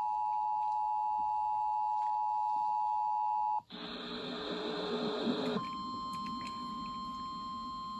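Emergency Alert System two-tone attention signal, two steady tones sounding together, cuts off about three and a half seconds in. After about two seconds of radio hiss, the single steady-tone weather radio warning alarm starts and holds.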